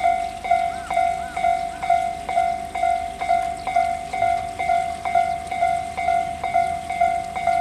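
Japanese railway level-crossing warning bell, the Tōbu Tōjō Line-type electronic bell, ringing steadily at about two strikes a second, each strike a bright ringing tone. It signals that a train is approaching or passing.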